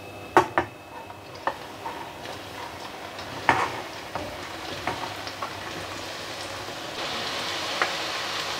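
Cut tempeh pieces deep-frying in hot oil: a steady sizzle with scattered sharp pops and clicks as pieces go in. The sizzle grows louder and fuller about seven seconds in, once the pan is full of frying tempeh.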